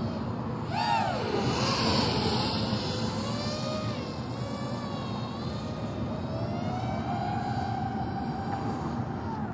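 DJI FPV drone's motors and propellers whining in the air, the pitch rising and falling as the throttle changes. About a second in there is a sharp downward sweep, and a slower rising whine follows near the end.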